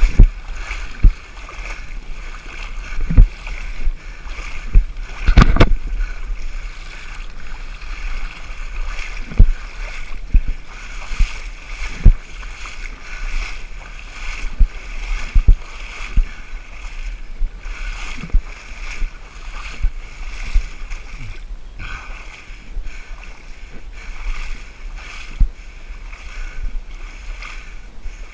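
A person wading through waist-deep muddy water, the water sloshing and splashing continuously with each stride, with irregular low thuds from the steps, the loudest about five seconds in.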